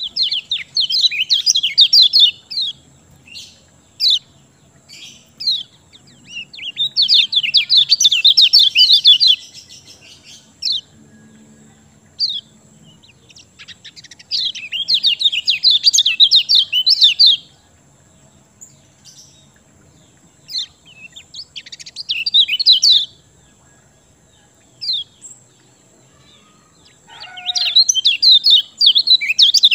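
Kecial kuning, a yellow white-eye, singing in full voice: five bursts of rapid, high chattering notes, each one to three seconds long, with single short chips between them.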